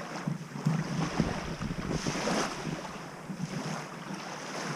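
Wind buffeting the microphone in uneven gusts, strongest about two seconds in, with small lake waves washing on the beach.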